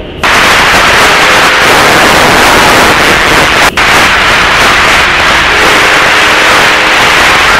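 Railroad radio scanner feed opening into loud static hiss, a keyed channel carrying no voice. The hiss starts abruptly and drops out for an instant about three and a half seconds in.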